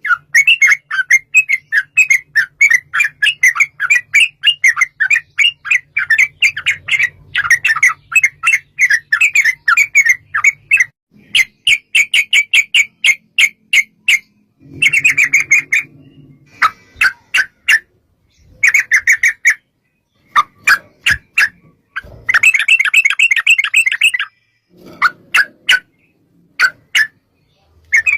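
Yellow-vented bulbuls (trucuk) singing a rapid, bubbly chatter of short notes in long runs of several seconds, broken by brief pauses.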